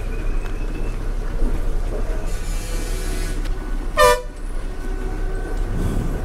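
Bus engine running inside the cabin as the bus pulls out, with a burst of hiss about two seconds in and one short horn toot about four seconds in.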